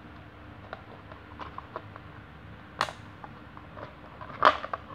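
Handling of a plastic clock case: scattered light clicks and taps, with two louder sharp knocks, one about three seconds in and one near the end.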